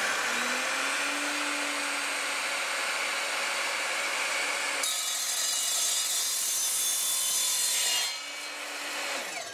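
Evolution R255SMS sliding mitre saw running and cutting through copper pipe at a 45-degree angle with its multi-material blade. The sound turns harsher and brighter about five seconds in as the blade bites into the pipe. The motor is released about eight seconds in and the blade winds down.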